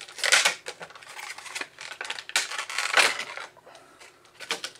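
Clear plastic clamshell packaging crinkling and crackling as it is handled and pulled apart, with small clicks and rustles between. Two louder crinkles, one just after the start and one about three seconds in.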